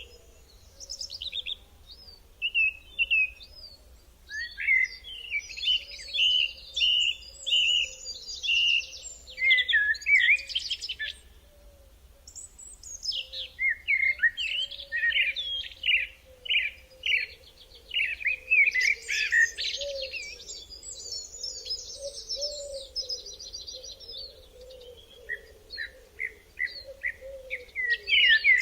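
Songbirds chirping and singing in rapid, busy phrases, with a brief lull about twelve seconds in.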